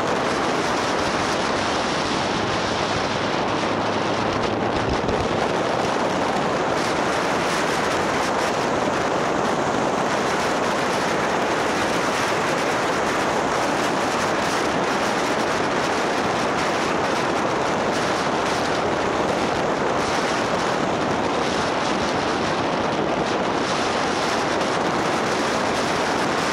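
Steady rush of wind and road noise from a motorbike on the move, the airflow buffeting the camera's microphone and covering most of the engine.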